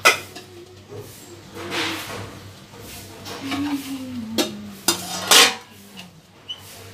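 Stainless steel plates and bowls clattering and scraping as food is dished out: a sharp clank at the start, a scrape about two seconds in, and a louder burst of clatter and scraping near the end.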